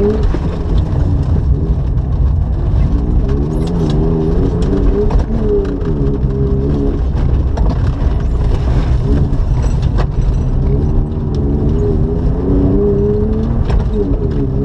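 BMW E36 engine heard from inside the cabin, revving hard on a gravel course. The pitch climbs and drops several times with brief breaks for gear changes and lifts, and scattered ticks of gravel hit the car.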